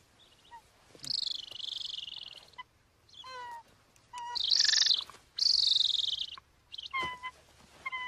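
A captured golden eagle calling while it is held: three long harsh, hissing screeches with short, sharp pitched yelps between them.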